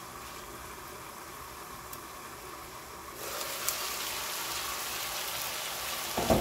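Sundae and vegetables cooking in a wok under a glass lid, a low steady hiss; about three seconds in the lid comes off and the sizzling turns louder and brighter. A short knock comes near the end.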